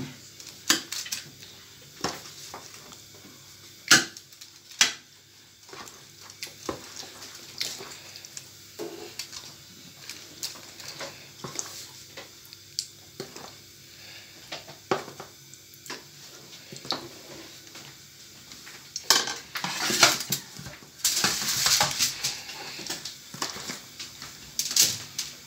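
A spoon clinking and scraping in a plastic bowl of marinated chicken pieces as they are lifted out and laid on a foil-lined baking tray, in scattered knocks and clicks. Near the end comes a louder stretch of scraping and rustling.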